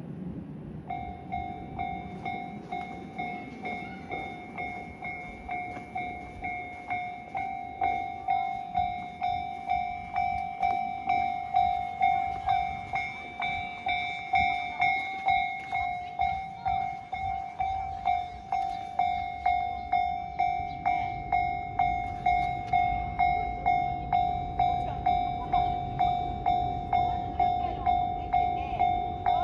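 Japanese railway level crossing warning bell starting about a second in and ringing steadily in even strokes, about three every two seconds. A low rumble builds underneath in the second half.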